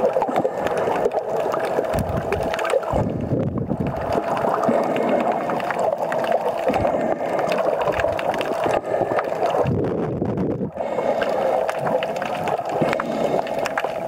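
Muffled gurgling and swishing of water against a camera held underwater, with a deeper surging rumble twice, around two to three seconds in and again around ten seconds in.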